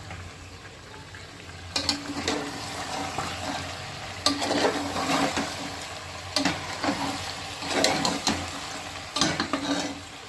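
A spoon stirring and scraping chicken curry in a pan, with several scraping clanks that start about two seconds in, over a low sizzle of frying. The chicken has cooked down until the oil has risen to the top.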